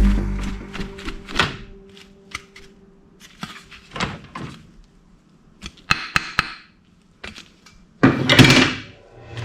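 Plastic toy weapons being handled: a thump at the start, then scattered clicks and knocks, and a short rustling burst near the end.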